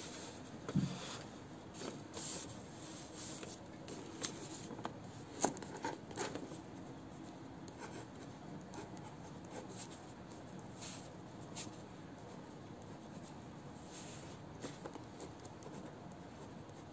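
Ballpoint pen writing on paper: faint, uneven scratching with small ticks as the strokes are made.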